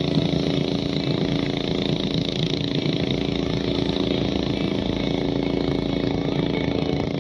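Motorboat engine running steadily at speed, an even drone with a wash of water and air noise over it.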